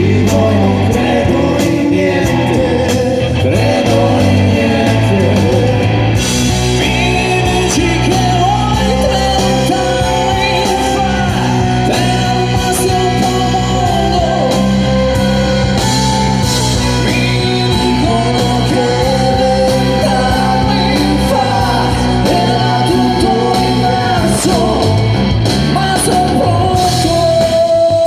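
Rock band playing live, with guitars, bass and drums; a voice starts singing about six seconds in as the band fills out.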